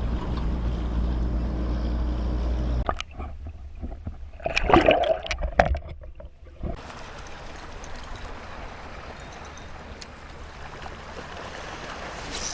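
Water splashing and gurgling at a kayak, with a few sharp knocks and the loudest splashing about halfway through. A low wind rumble sits under the first few seconds and a steady hiss under the rest.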